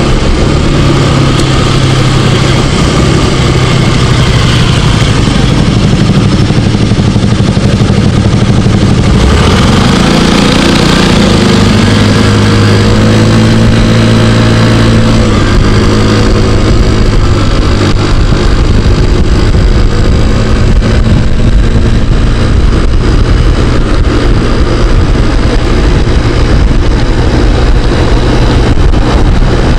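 Yamaha scooter engine running while riding in traffic, mixed with loud wind rush on the microphone. Its note rises and falls a little through the middle, as the speed changes. The scooter has a newly replaced air cleaner, fitted after the old clogged one made it bog and stall.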